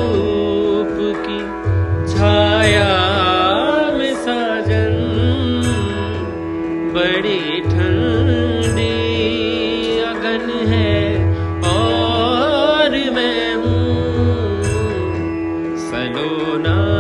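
Background music: a steady drone under a winding melody, with a low bass note coming in about every three seconds.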